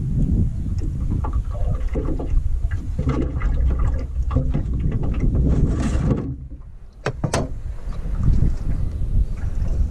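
Wind buffeting the camera microphone aboard a small aluminium boat, with scattered small knocks. About six seconds in the wind noise drops away briefly, then two sharp clicks come just after seven seconds before the rumble returns.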